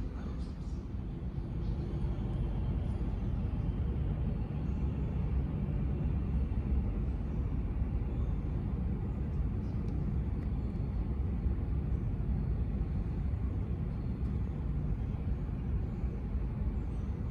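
Jet airliner engines giving a steady low rumble, which builds slightly over the first two seconds and then holds.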